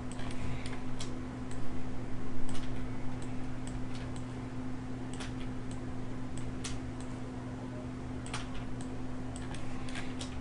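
Irregular clicks of a computer mouse and keyboard, about a dozen over the span, picked up by a desk microphone over a steady low electrical hum.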